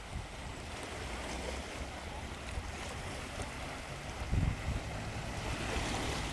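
Caspian Sea waves washing, with wind gusting on the microphone; the wash swells near the end.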